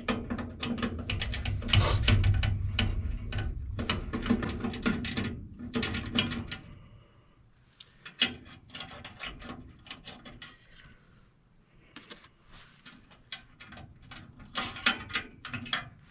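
Rapid mechanical clicking and rattling over a low hum for about six seconds, like a tool or mechanism being worked on furnace parts, then scattered clicks and taps with a short cluster near the end.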